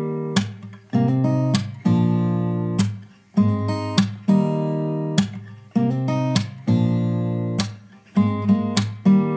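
Background music: an acoustic guitar strumming chords, each chord ringing out and fading before the next strum.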